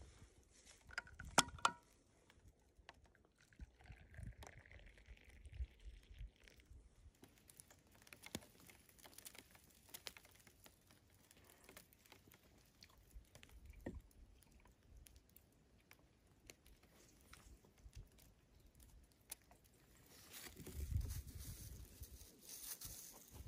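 Faint handling sounds: a sharp clink about a second and a half in, then scattered small crinkles and taps from a plastic food bag, a cup and a thermos on a wooden table, with louder rustling and knocking near the end as they are packed away.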